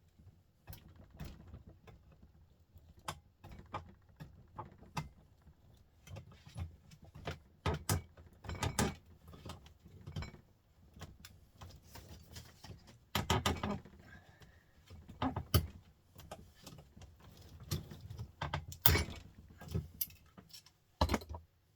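Metal-on-metal clicking, scraping and clanking as a small printer motor is pried apart in a vise with pliers. The knocks are irregular, with a few longer, louder scrapes near the middle and toward the end.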